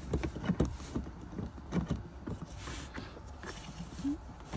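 Irregular plastic clicks, knocks and scraping as a 4-inch dash speaker is pressed and worked into its plastic mount, its retaining tabs not letting it seat.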